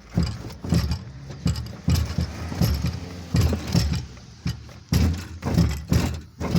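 Wheel-arch roller being worked back and forth along a car's dented wheel arch: repeated loud metallic clunks and rattles, about two or three a second, as the roller presses the crease out of the arch.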